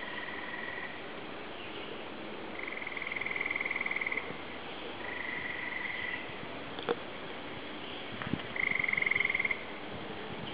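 An animal calling in short, high, rapidly pulsed trills: four of them, each about a second long and a few seconds apart, with two sharp clicks in between.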